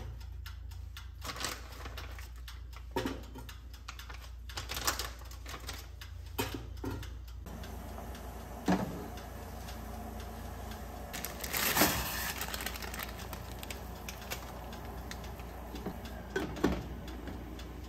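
Kitchen handling sounds: scattered light clicks and knocks as a metal toaster-oven tray is handled, then as a steel pot on a gas stove is stirred, over a steady low hum. A louder brief burst of noise comes about twelve seconds in.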